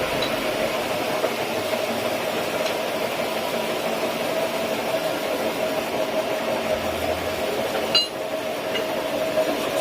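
Sawmill machinery running steadily with a constant hum. A single sharp metallic clink comes about eight seconds in.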